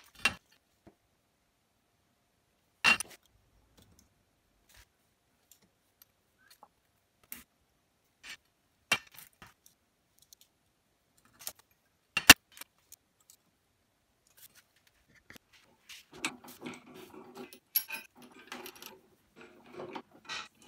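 Small metal parts and hand tools being handled: scattered clicks and clinks, with two sharper knocks about 3 and 12 seconds in. The last few seconds become busier with rattling and scraping.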